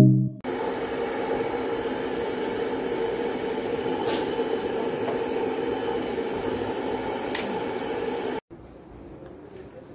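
Steady machine hum with two brief light ticks; it cuts off suddenly near the end, leaving quieter room tone.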